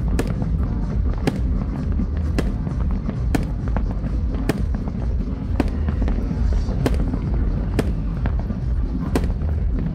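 Aerial fireworks going off in a continuous barrage: sharp bangs about once a second over a steady low rumble, with music playing underneath.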